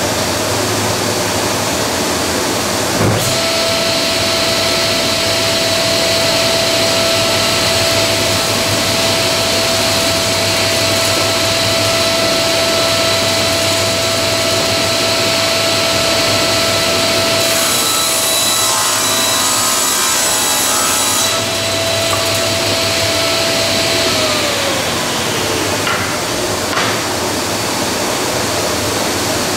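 Table saw switched on a few seconds in with a click, then running with a steady whine. For a few seconds about two-thirds of the way through, the blade cuts through Baltic birch plywood with a harsh, rougher noise. The saw is then switched off and the whine falls in pitch as the blade spins down. A steady rushing noise from another shop machine runs underneath.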